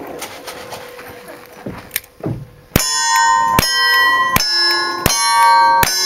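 Five revolver shots in quick succession, about 0.8 s apart, each answered by the clang and ringing of a struck steel plate target.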